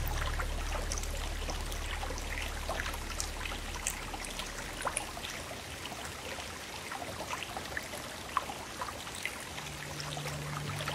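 Steady rush of a fast-flowing stream over rocks, with scattered faint ticks. Background music fades out in the first few seconds and a low music note comes back near the end.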